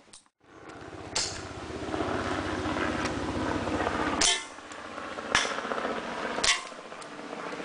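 Gas airsoft pistol (HFC M0.25 non-blowback) fired three times about a second apart, sharp pops in the second half. Before them a steady low rumble runs for about four seconds.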